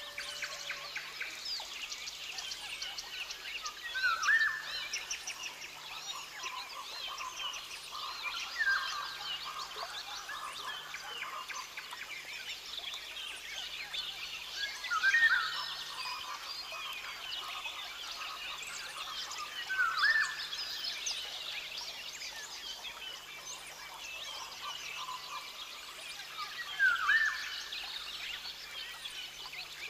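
Rainforest ambience: a dense, steady chorus of rapid chirps and trills from calling creatures, with a louder call that sweeps upward in pitch, repeated five times about every five seconds.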